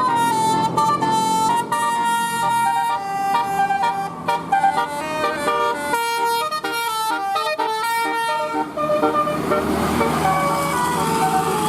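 Bus 'telolet' musical air horn (Basuri type) playing a quick tune of changing horn notes. About nine seconds in the notes give way to a steadier, noisier sound with a few held tones.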